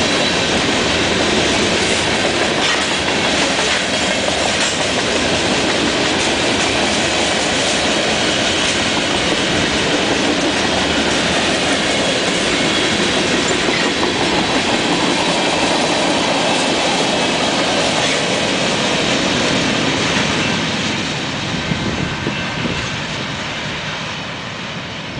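A Canadian Pacific mixed freight train's cars (tank cars, covered hoppers, boxcars) rolling past, with steady wheel-on-rail noise and repeated clicking over the rail joints. The sound fades as the last cars go by near the end.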